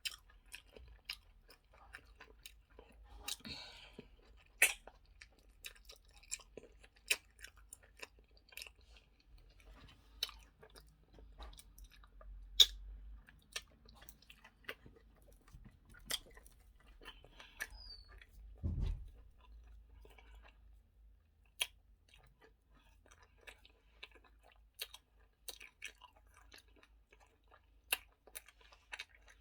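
A person chewing and eating eba with okra soup close to the microphone: mouth sounds with many sharp, irregular clicks, and a single low thump about two-thirds of the way through.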